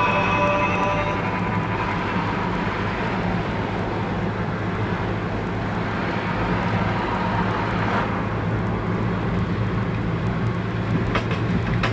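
Car cabin noise while driving: a steady engine drone with tyre and road rumble. Faint music fades out in the first second or so and comes back near the end.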